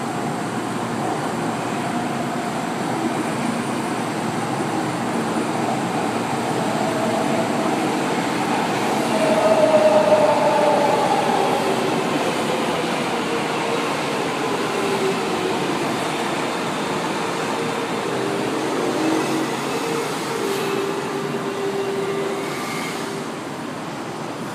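São Paulo Metro Line 2 train running at the station platform: a steady rumble of wheels and running gear with an electric motor whine that falls in pitch, loudest about ten seconds in and easing off near the end.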